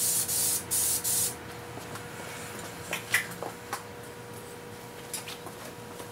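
Aerosol spray paint can hissing in two short bursts as base coat is sprayed onto a car fender. Then a few light, scattered clicks and taps.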